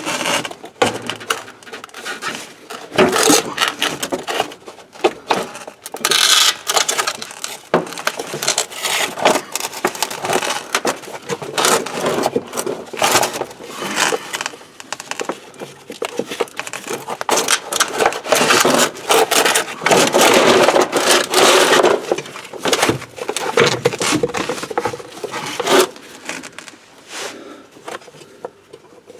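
Hand work on a car's spare-tire winch and its wire: irregular scraping, rubbing and clicking, with longer stretches of scraping about six seconds in and again around twenty seconds.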